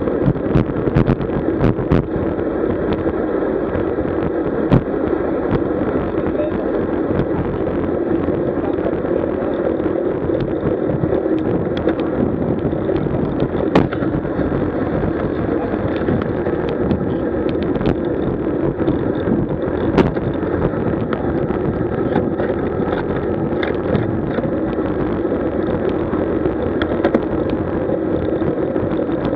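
Wind rushing over the microphone of a camera riding on a moving road bicycle: a steady rush with occasional sharp knocks.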